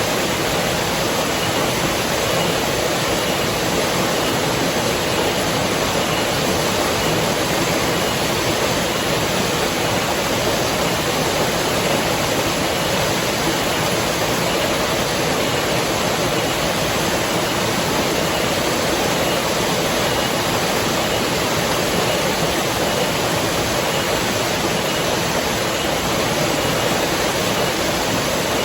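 River water rushing in a steady, unbroken flow, with no single splashes or other events standing out.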